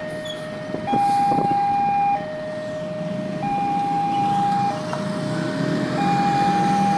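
Railway level-crossing warning alarm sounding, switching back and forth between a higher and a lower tone, each held a little over a second; it signals that a train is approaching and the crossing is closing. A low rumble grows beneath it in the second half.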